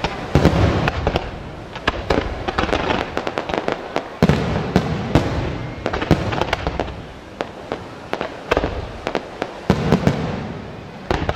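Aerial fireworks display: an irregular series of sharp bangs from launching comets and bursting shells, several a second, over a continuous noisy din. The heaviest volleys come near the start, about four seconds in and again near the end.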